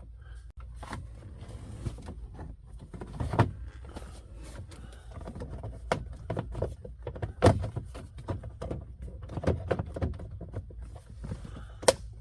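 Hand work on a Ford Expedition's steering column: irregular clicks, taps and rattles of parts being fitted, with a few sharper knocks, the loudest about seven and a half seconds in and just before the end, over a low steady hum.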